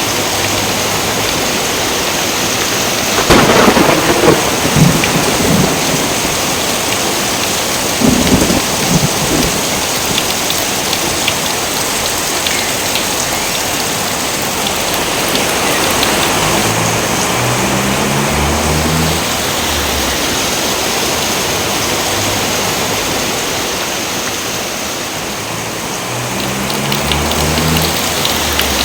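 Steady heavy rain in a thunderstorm, with a loud clap of thunder about three seconds in and another about eight seconds in.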